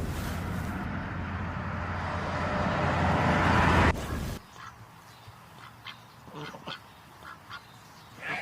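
A swelling rush of noise that cuts off abruptly about four seconds in, followed by a few short, faint calls of farm poultry with a quacking sound.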